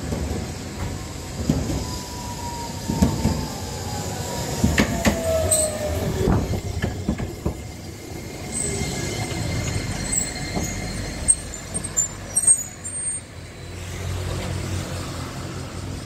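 Kagoshima City tram pulling into a stop: its wheels knock over the rail joints over a low rumble, with a whine falling in pitch as it slows. High wheel and brake squeals follow as it comes to a halt, then a steady low hum while it stands.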